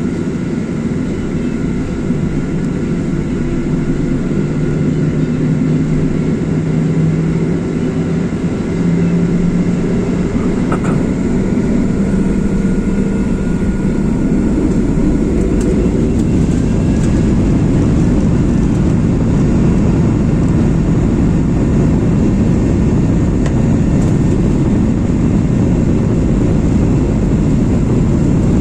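Boeing 737-800's CFM56 turbofan engines spooling up to takeoff thrust. A low tone climbs in pitch over the first ten seconds and the sound grows louder about nine seconds in, then settles into a steady heavy rush through the takeoff run.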